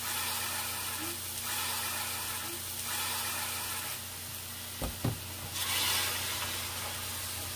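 Sliced eggplant, onion and green onion sizzling in a hot stainless steel pan as they are stirred with a wooden spoon. Two short low knocks come about five seconds in, then a louder hiss as spoonfuls of soy sauce hit the hot pan.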